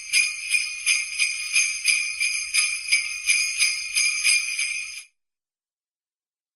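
Jingle bells shaken in a steady rhythm, about three shakes a second, stopping abruptly about five seconds in.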